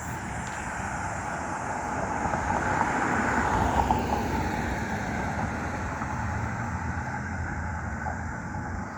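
Car road noise of tyres and engine while driving, swelling to a peak about four seconds in and then easing off.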